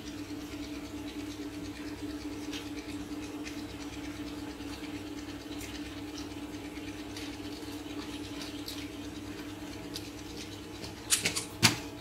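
A meal eaten by hand: roti torn and scooped from a clay bowl, with faint scratches and taps over a steady low hum, and a few sharp clicks near the end.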